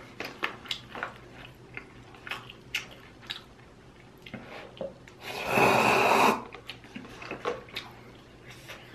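Instant cup noodles slurped off chopsticks in one loud, hissing burst of about a second just past the middle, surrounded by close-miked wet chewing clicks and mouth smacks.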